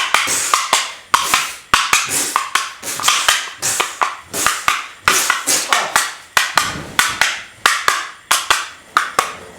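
A steady run of sharp percussive hits, about two a second, each dying away quickly, like a drum beat.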